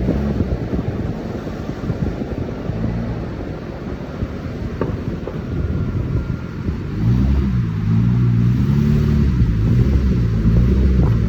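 2004 Ford Mustang V6's 3.8-litre engine and exhaust while driving. From about seven seconds in, the engine note rises and falls repeatedly with the throttle.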